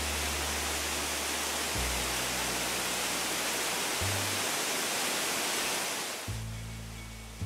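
Water gushing out through a tanker truck's hose pipe, a steady rushing hiss that fades away near the end. Low bass music notes play underneath.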